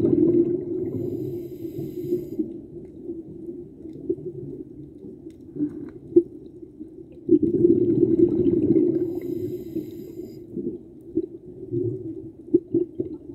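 A scuba diver's exhaled breath bubbling out of the regulator, heard underwater. There are two long exhalations, one at the start and another about seven seconds in, with quieter bubbling and small clicks between them.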